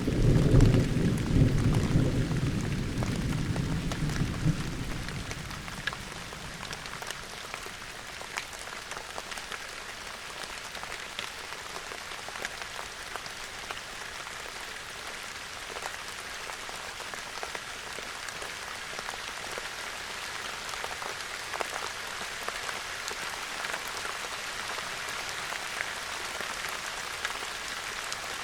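Steady rain falling, with scattered drops ticking close by. A low rumble of thunder at the start dies away over about the first five seconds.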